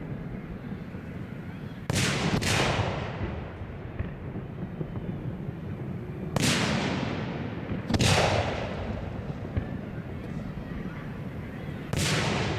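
Aerial firework shells bursting overhead: five booms, two close together about two seconds in, then single ones about six, eight and twelve seconds in, each trailing off in a long echo.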